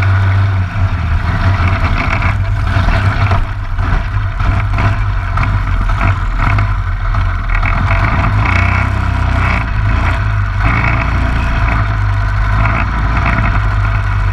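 Waller-built LO206 single-cylinder four-stroke kart engine running steadily close to the fairing-mounted camera, with no revving.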